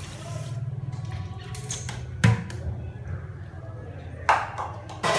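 A pot of soup at a rolling boil with a steady low rumble, broken by three sharp knocks: one about two seconds in, one about four seconds in, and a loud one at the very end.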